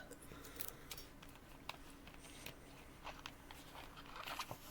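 Quiet room with a few faint, scattered clicks and light handling noises, and a small cluster of them near the end.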